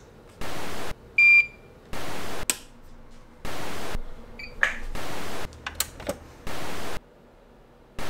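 Half-second bursts of TV-static hiss, repeating about every second and a half. A loud electronic beep from a Hakko soldering station's button sounds about a second in, and a softer beep comes around the middle, followed by a few sharp clicks.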